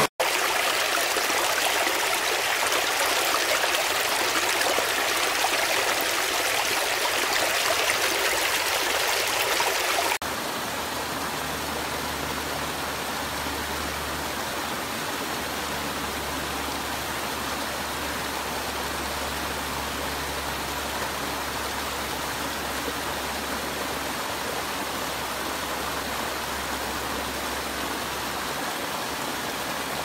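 Stream water running and splashing over low rock cascades in a steady rush. About ten seconds in, the sound cuts abruptly to a slightly quieter, softer flow with a low rumble underneath.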